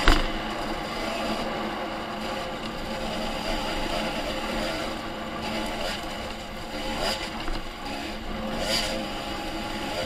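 Dirt bike engine running under way on a trail, its pitch wavering up and down with the throttle. A few sharp knocks from the bike hitting bumps, the loudest right at the start.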